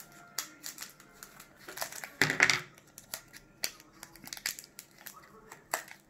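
Foil Pokémon booster pack wrapper crinkling and crackling as it is handled, loudest about two seconds in, with scattered small clicks. Near the end, scissors snip at the wrapper to cut it open.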